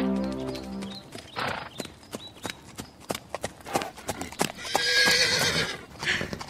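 A held synth chord dies away in the first second, then horse hooves clip-clop unevenly for a few seconds. A horse whinnies, with a wavering pitch, about five seconds in. These are stage sound effects in an audio play.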